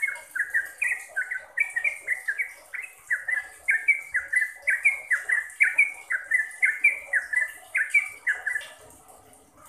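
Yellow-vented bulbul (trucukan) singing a rapid, unbroken run of short sliding notes, about three a second, that stops near the end.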